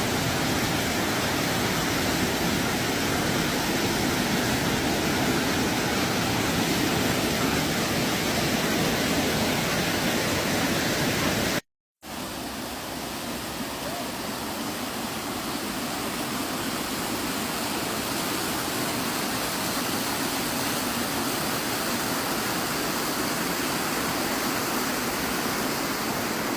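Waterfall water falling and rushing, a steady even noise. About halfway through it cuts out for an instant, then returns a little quieter and with less low rumble.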